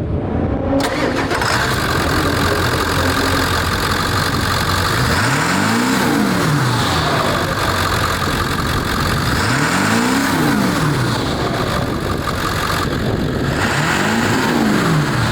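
Ford 7.3 L Power Stroke turbo-diesel V8 starting up and running, breathing through a newly fitted S&B cold air intake. It is then revved three times, each rev rising and falling in pitch, about four seconds apart, with a steady high whine from the turbo.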